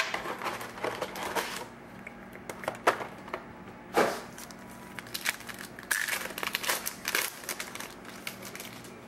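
Plastic wrapping crinkling and rustling in irregular bursts, with light clicks and taps, as a hobby box of trading cards is unwrapped and its packs handled; the loudest crinkle comes about four seconds in.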